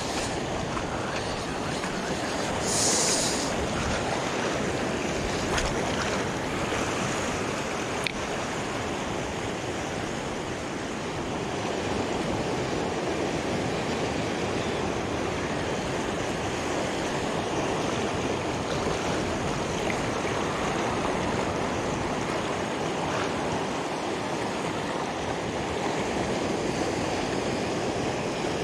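Small sea waves washing and surging over a rocky shoreline: a steady rushing wash. A brief high hiss about three seconds in.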